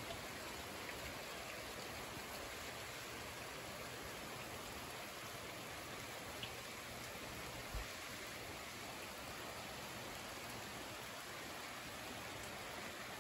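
Steady rainfall on trees, grass and a wet dirt road, an even hiss. A single soft low thump sounds about eight seconds in.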